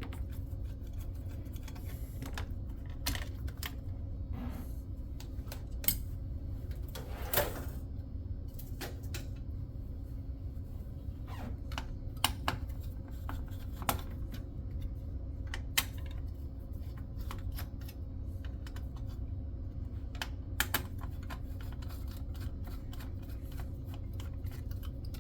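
Computer hardware being handled during disassembly: scattered light clicks and knocks of small metal and plastic parts and screws, about ten in all, over a steady low hum.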